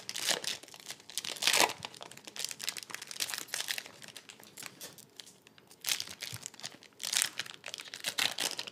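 Trading card pack wrappers being torn open and crinkled in the hands, in irregular rustling bursts, loudest about a second and a half in.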